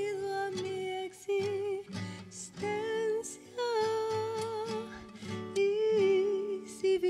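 A woman singing long held notes with vibrato, accompanied by a strummed classical guitar.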